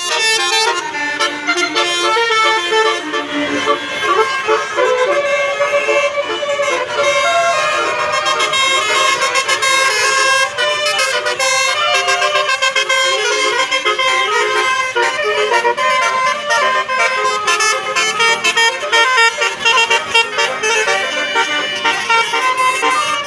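Indonesian bus 'telolet' horn: a set of multi-tone air horns playing a fast melody of changing notes without a break.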